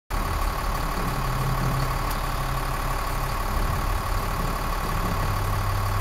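A motorhome engine idling steadily, with a constant whine above its low hum, while the dash air-conditioning system is checked.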